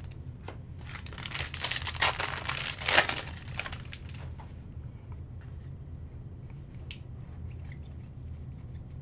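Foil trading-card pack wrapper being torn open and crinkled for about two seconds, starting about a second in, then a few faint clicks over a low steady hum.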